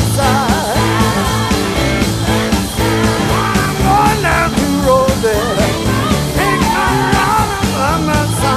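Live blues-rock band playing loudly, with an electric guitar lead of bent, wavering notes over bass and drums.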